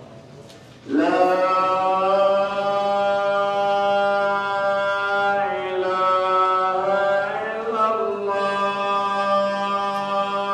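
A man's voice chanting in long, drawn-out melodic phrases, starting about a second in, with shifts in pitch around the middle.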